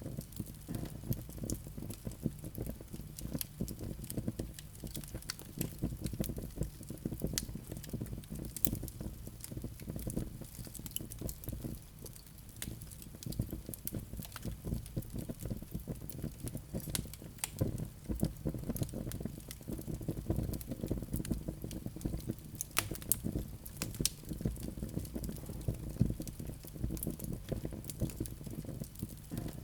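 Wood fire burning with a steady low rumble and frequent sharp crackles and pops.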